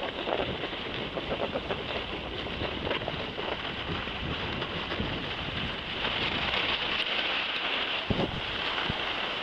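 Wind rushing over the microphone of a camera carried by a moving skier, with the steady hiss and scraping of skis sliding over packed snow.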